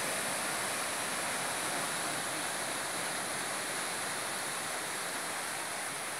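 Ocean surf breaking on a rocky reef and washing over the rock shelf: a steady, even rush of waves.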